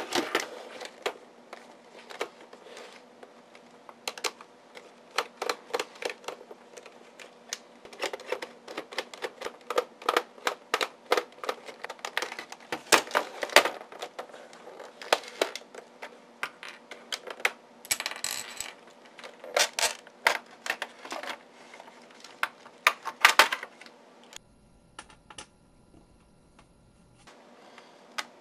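Handling noise as a Roland TR-505 drum machine's plastic case is turned over and taken apart: irregular clicks, knocks and short clattering rattles against a wooden table. Near the end the clatter stops for a few seconds of faint steady hum.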